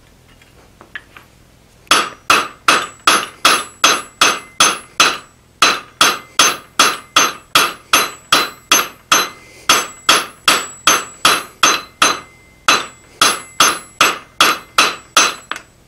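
Hand hammer striking a hot drawknife blank of forge-welded mild steel and W1 tool steel on the anvil, starting about two seconds in: a steady run of blows at about two and a half a second, each with a ringing tone, broken by two short pauses.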